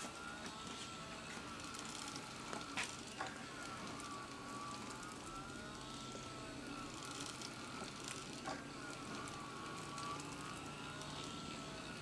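Homemade Venetian-blind bellows pump running on its crank and flywheel: a faint whine that rises and falls in pitch over and over, with a few sharp clicks.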